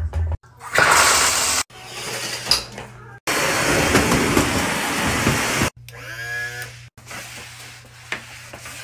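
Several short cleaning sounds spliced together with abrupt cuts. The longest and loudest is an upright vacuum cleaner running steadily over a tile floor for about two and a half seconds mid-way.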